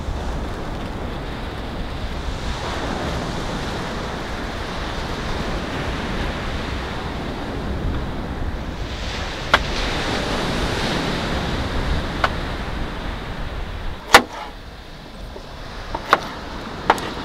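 Wind and sea surf washing on a pebble shore, a steady rushing noise, with a sharp, loud knock about fourteen seconds in. After it the rushing drops, and near the end a kitchen knife clicks a few times as it slices small potatoes on a wooden cutting board.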